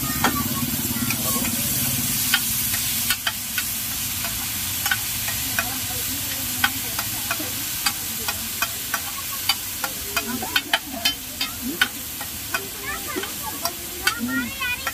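Pav bhaji sizzling on a large flat iron tawa while a steel spatula scrapes and clacks against the griddle as the mix is stirred and spread. The clacks come more often in the second half.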